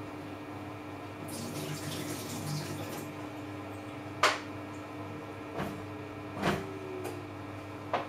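Samsung Eco Bubble front-loading washing machine running with a steady hum. About a second in, water rushes in for a couple of seconds, then come four sharp knocks, the loudest about four seconds in.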